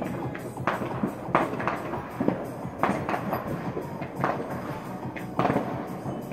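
Fireworks going off at irregular intervals, a string of sharp bangs and crackles about a second apart, over steady background music.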